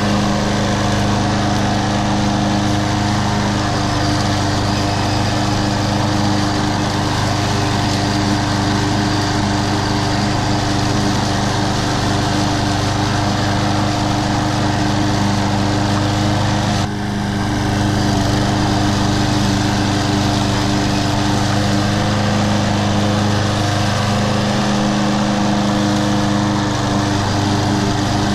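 Troy-Bilt TB230 21-inch mower's Briggs & Stratton engine running steadily while cutting grass, with a brief dip in loudness about two-thirds of the way through.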